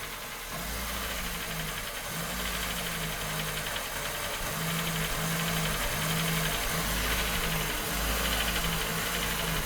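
Ford Fiesta's supercharged 1.0 8V engine settling to idle after a rev, with a rhythmic knocking in the running. The owner likens the knock to a knocking pin ("pino batendo"); it appears as the revs drop back, and the oil and filter are freshly changed.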